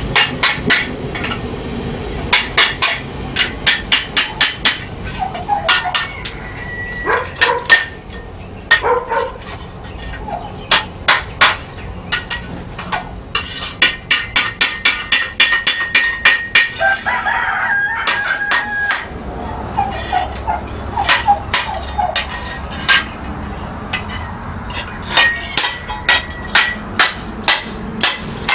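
Runs of hammer blows on hot steel on an anvil, several strikes a second with short pauses between runs, as a trowel blade is straightened and folded into a cup. A rooster crows several times behind the hammering, the longest crow about two thirds of the way through.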